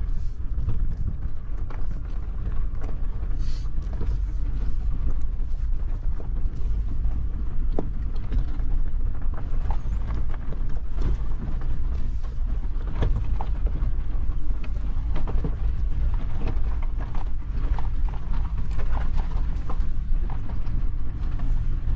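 Suzuki Jimny driving along a rough mountain track: a steady low rumble of engine and tyres, with scattered small knocks and rattles.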